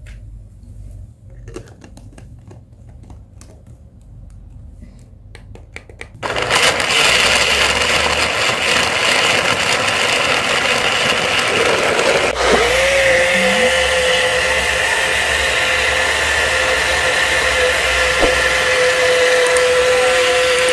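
Portable bottle blender starting suddenly about six seconds in, after a few faint clicks, and running steadily as it purées soaked almonds, banana, dates and ginger in water into a smoothie. From about halfway a steady motor whine settles in under the blending noise.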